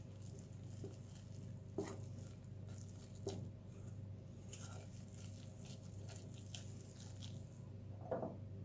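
Metal utensil stirring a stiff flour, egg and cheese dough in a bowl: soft squishing and scraping with light clicks, and three sharper knocks against the bowl about two, three and eight seconds in, over a low steady hum.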